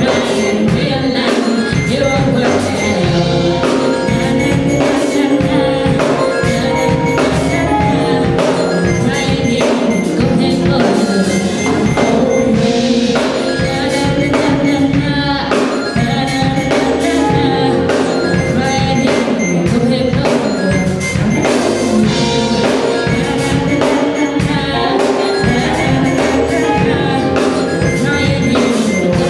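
Loud music with singing and a steady drum beat.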